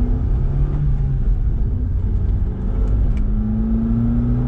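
Vauxhall Corsa C engine pulling on the road, heard from inside the cabin, with a slight extra intake noise from a newly fitted aftermarket air filter. The engine note climbs, drops away about a second in, and climbs again near the end over a steady low rumble.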